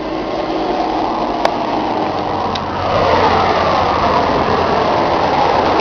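John Deere 4850's six-cylinder diesel engine running steadily, its sound growing louder about three seconds in.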